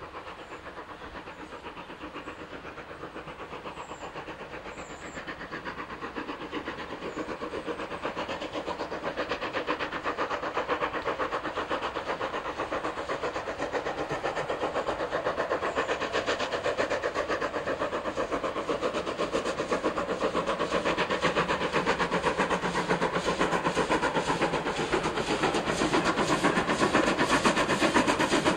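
GWR 5700 class 0-6-0 pannier tank steam locomotive No. 5775 working hard with a train of coaches. Its exhaust beats come in a fast, even rhythm and grow steadily louder as it approaches.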